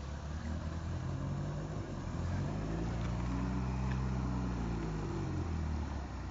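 Off-road 4x4 jeep's engine pulling through shallow muddy river water, revving up about two seconds in and easing back down near the end, over a steady rushing noise.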